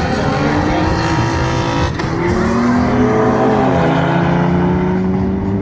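Racing cars accelerating hard down a runway, their engines climbing in pitch, dropping once at a gear change about three and a half seconds in, then climbing again.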